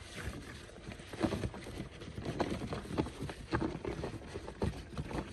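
Light, irregular knocks and scrapes of a clear plastic water can shifting on gravel while it is held over a cobra crawling inside.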